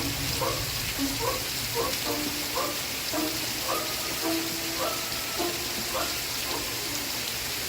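Steady rain hiss. Under it, faint old television programme audio plays: a run of short, held notes.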